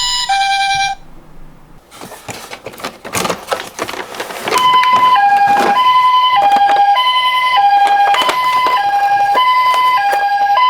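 A toy ambulance's electronic siren playing the Japanese two-tone 'pee-po' call, a high note and a lower note alternating evenly, starting about halfway through. Before it come a couple of seconds of light clicks and knocks from the plastic toy being handled.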